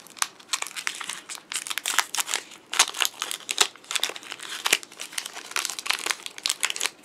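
Foil wrapper of a Pokémon trading card booster pack crinkling in the hands as it is handled and opened, a dense run of sharp, irregular crackles.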